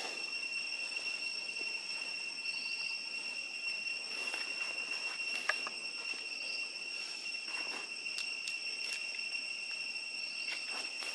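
Steady high-pitched drone of insects, two even tones held right through, with a few faint rustles and a sharp click about halfway through.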